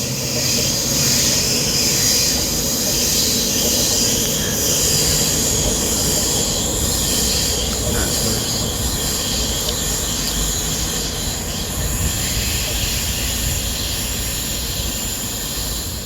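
A train running on the rails, its steel wheels squealing in a steady high pitch over the low rumble of the wheels and carriages.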